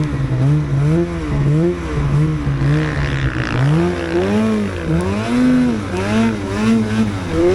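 Snowmobile engine revving up and down over and over, about once a second, as the throttle is worked in short bursts.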